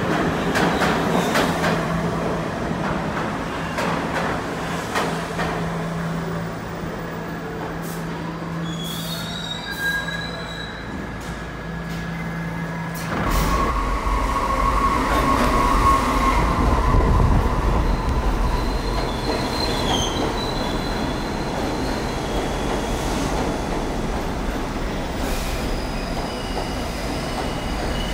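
R68 subway cars at a station platform: a steady hum with scattered clicks, then abruptly a heavy rumble with high-pitched wheel squeals that come and go as a train moves along the platform.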